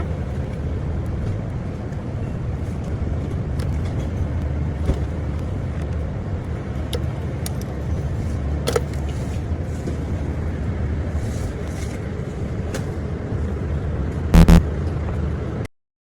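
Car engine running steadily with a low hum, a short loud knock about fourteen seconds in, then the sound cuts off suddenly near the end.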